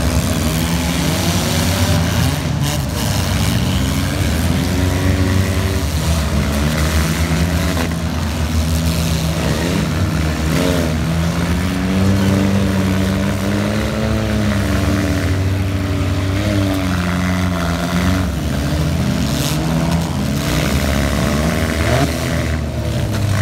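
Several demolition derby cars' engines revving and running at once, their pitches rising and falling over one another.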